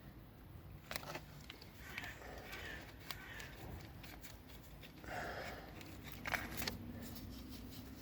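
Faint handling noises: a few sharp clicks, the loudest about six and a half seconds in, and short stretches of rustling, over a steady low hum.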